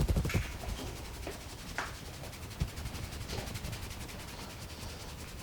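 Hands tapping fast during a head massage: a quick run of dull slaps that ends about half a second in. Softer rubbing and a few light taps follow.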